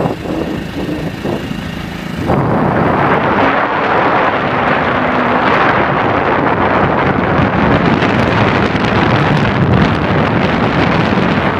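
Loud steady rush of wind on the microphone, starting abruptly about two seconds in, after a quieter stretch with a faint engine-like hum.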